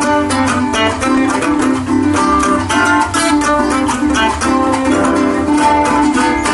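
Instrumental Venezuelan folk music played on plucked strings, bandola and cuatro, with fast, evenly spaced notes and strums.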